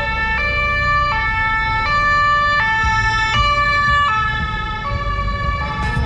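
German two-tone emergency siren (Martinshorn) on a German Red Cross vehicle, its two notes alternating about every three-quarters of a second over a low rumble. The notes sit slightly lower in pitch near the end.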